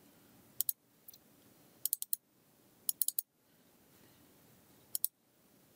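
Computer mouse clicking: several short groups of two or three quick clicks, about a second apart, as in double-clicks.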